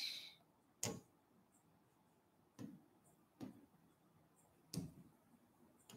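Near silence with about four short, sharp taps spread across a few seconds: a finger or stylus tapping the glass of an interactive touchscreen board while picking a pen colour.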